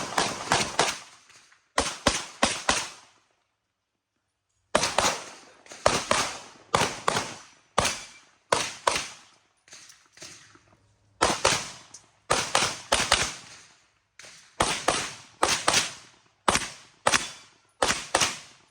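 Handgun shots fired in quick pairs and triplets during an IPSC shooting stage, each crack followed by a short echo; the firing stops for about a second and a half near the start, then resumes in steady strings to the end.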